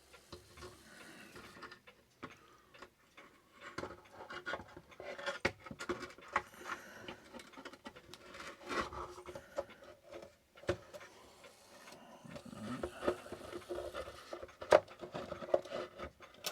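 A Herschede clock movement being worked into its wooden case: irregular knocks, clicks and rubbing as it is shifted into place, with one sharper knock near the end.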